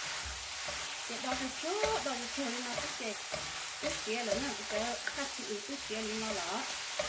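Food frying in a hot pan: a steady sizzle with a few sharp clicks, and voices talking quietly under it.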